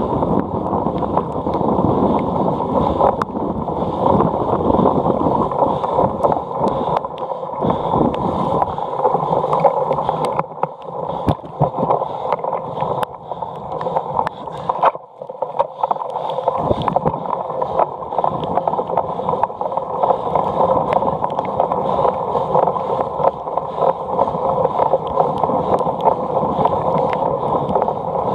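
Steady rumble of a cyclocross bike being ridden hard over grass, with wind rushing on the microphone and scattered clicks and rattles from bumps. The rumble eases briefly about halfway through.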